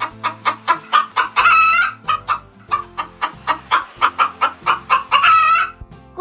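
Chicken clucking in quick succession, about five clucks a second, broken by two longer drawn-out cackles, one about a second and a half in and one near the end.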